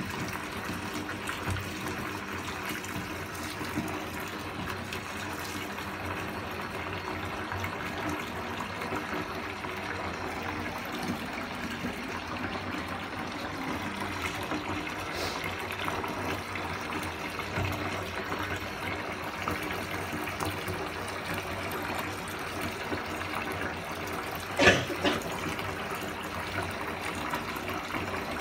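Water running steadily into a bathtub from the tap as the bath fills, a broad even rush. One sharp knock sounds a few seconds before the end.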